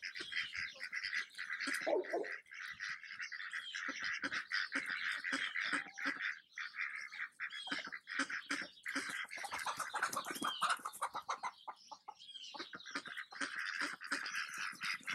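Chickens and ducks calling, over constant high chirping and twittering. A lower call stands out about two seconds in.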